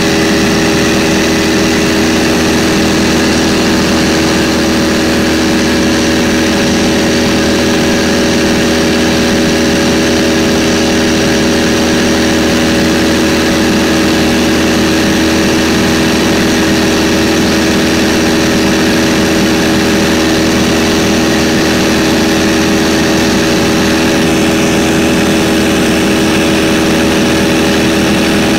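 A 1946 Stinson 108's Franklin six-cylinder engine and propeller droning steadily in flight, heard from inside the cabin. The power setting holds constant, with no rise or fall in pitch.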